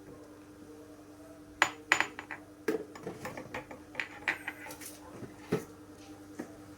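A few light, irregularly spaced clinks and taps of a spoon and tableware knocking against dishes, over a faint steady hum.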